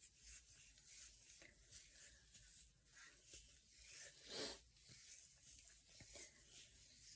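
Faint rustling and scratching of fingers working styling gel through short curly hair, with a slightly louder scrape about four and a half seconds in.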